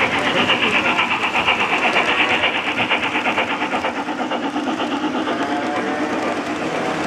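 Lionel O gauge model steam locomotive and its freight cars running past on three-rail track. There is a fast, even, pulsing hiss over a steady rumble of the wheels on the rails, and the hiss fades about halfway through as the locomotive draws away and the boxcars roll by.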